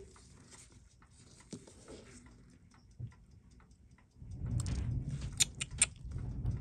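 Steel watchmaker's tweezers clicking and tapping against small metal watch parts, with faint light clicks at first. About four seconds in a low handling rumble rises, and three sharp, bright metal clicks follow in quick succession.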